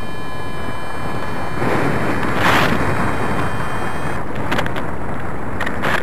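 Wind rushing over the camera microphone of a paraglider in flight, a loud steady rush that swells about two seconds in. A steady high tone sounds along with it and stops about four seconds in, and a few brief crackles come near the end.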